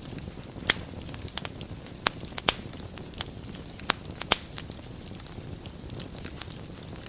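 Wood fire burning in a fireplace: a steady low rumble of flame with sharp crackles and pops at irregular moments, thicker in the first half.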